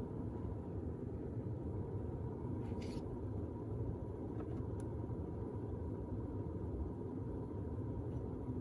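be quiet! Dark Power Pro 12 1500 W power supply clicking like a relay opening and closing: two clicks, one about three seconds in and a sharper one about two seconds later, over a steady low hum of the running PC. The owner finds the clicking too frequent to be normal.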